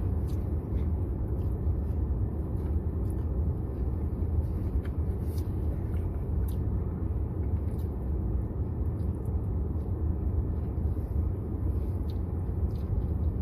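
Steady low rumble of a car's idling engine heard inside the cabin, with a few faint clicks scattered through it.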